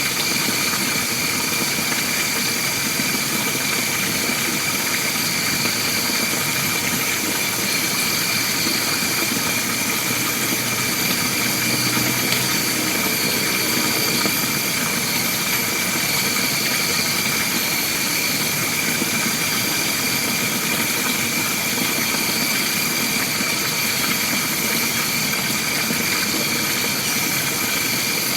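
Steady chorus of insects in forest, a continuous high-pitched drone with no breaks.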